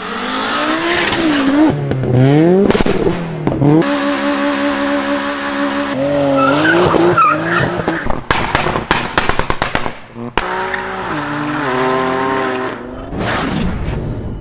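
Tuned performance cars in quick succession: engines revving up and down and pulling through the gears, including a turbocharged Audi S2 coupé accelerating away, with tyre squeal from a Nissan Skyline R34 drifting. About eight to ten seconds in comes a rapid series of sharp exhaust bangs.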